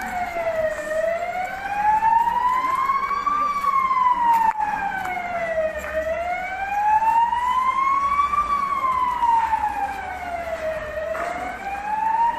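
An emergency vehicle's siren wailing, its pitch rising and falling slowly, about one full cycle every five seconds.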